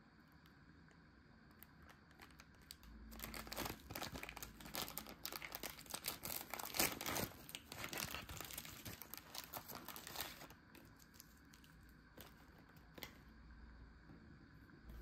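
Plastic food packaging crinkling and tearing open, a dense run of crackles lasting about seven seconds from about three seconds in.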